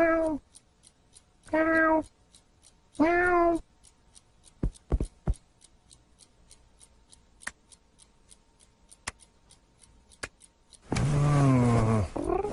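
Domestic cat meowing, four short meows in the first few seconds, then a few sharp clicks and, near the end, a loud, longer, lower call that falls in pitch. Faint regular ticking sounds underneath.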